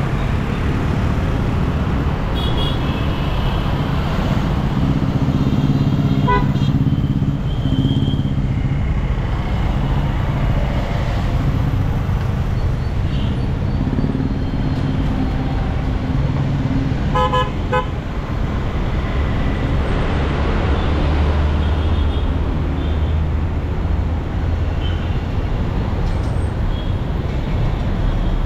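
Busy city road traffic: engines and tyres making a steady hum, with horns tooting now and then from the surrounding vehicles, including a quick string of beeps about six seconds in and again past seventeen seconds.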